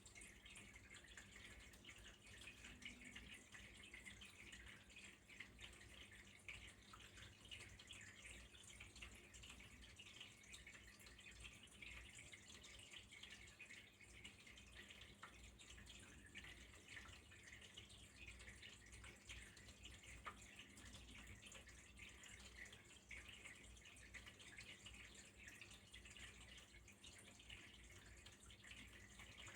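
Faint, steady trickle of flowing water: a dense run of small drips and splashes that keeps on without a break.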